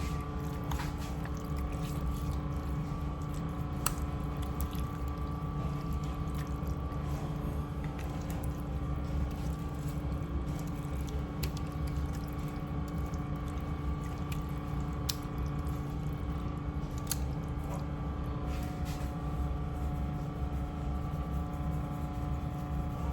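Steady low hum with a few faint steady tones, broken by scattered light clicks and taps from hands handling seasoning shakers and raw chicken pieces.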